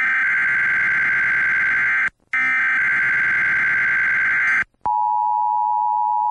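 Emergency Alert System tones: two long, harsh electronic data bursts with a short break between them, then the steady two-tone attention signal starting about five seconds in.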